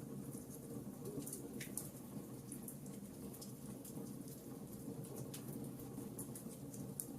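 Wood fire in a fireplace crackling, with frequent small sharp pops and snaps over a low steady rumble; one pop near the end is a little louder.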